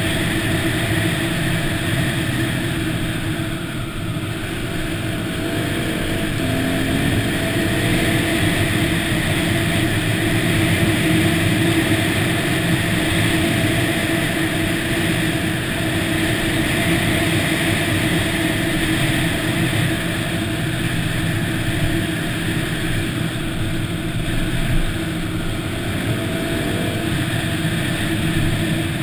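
Yamaha WR250 dirt bike's single-cylinder engine running steadily under way at cruising speed on a dirt trail, with only slight changes in pitch.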